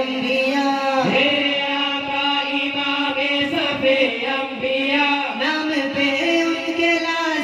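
A group of male voices chanting an Islamic devotional song (naat) together, the melody moving over a long-held low note.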